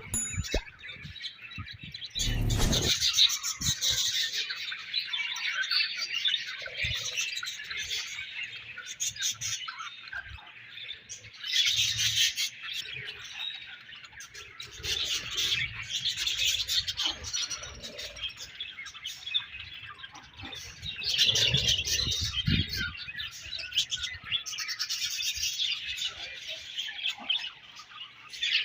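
A colony of budgerigars chattering and chirping together, a continuous high warble with louder bursts of many birds at once.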